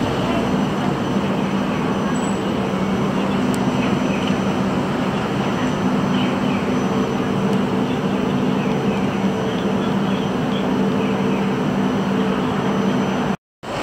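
A steady mechanical hum: several held low tones over an even rush of noise, unchanging throughout.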